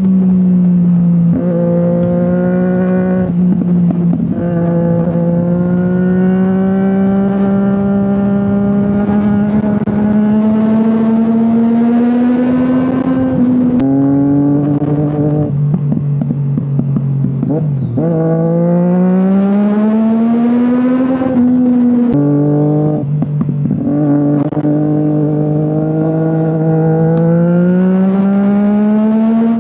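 Triumph Daytona 675's three-cylinder engine under riding load, recorded by a microphone on the bike: the engine note climbs steadily as it pulls, then drops abruptly at each gear change, about half a dozen times, with rushes of wind noise as speed builds.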